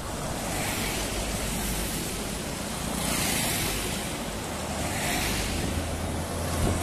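Motorcade of SUVs and an ambulance driving past one after another, the rush of tyres and engines swelling as each vehicle goes by, three times, with a deeper engine hum building near the end.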